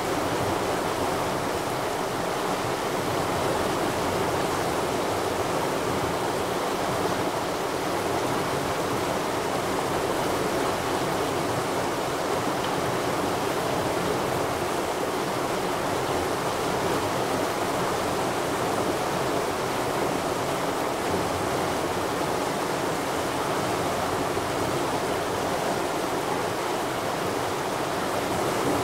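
Rushing stream: a steady, even rush of running water that does not change, with no separate splashes or other events.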